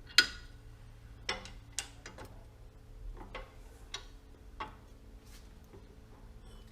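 A series of sharp metallic clinks and knocks at uneven intervals, metal tooling being handled and set in place for broaching, the first the loudest with a brief ring.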